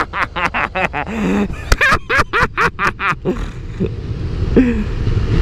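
A man laughing in quick short bursts for about three seconds, then a short falling grunt, over the steady low running of a KTM 390 Duke's single-cylinder engine and wind.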